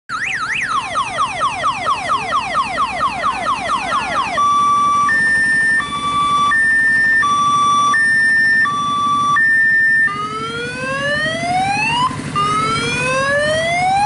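Electronic siren running through its patterns: a fast up-and-down yelp for about four seconds, then a two-tone hi-lo alternating roughly every second, then slow rising wails near the end.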